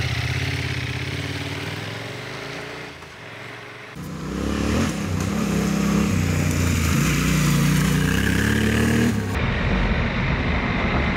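Large adventure motorcycle engines on a gravel track. First one pulls away and fades over about four seconds; then, after an abrupt change, a louder one runs with rising and falling throttle.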